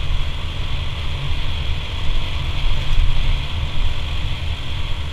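Automatic scooter being ridden, its engine running under heavy wind rumble buffeting the microphone.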